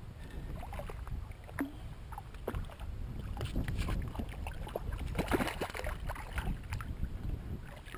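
Water splashing and small knocks around a fishing kayak, busiest about five seconds in, over a steady low rumble.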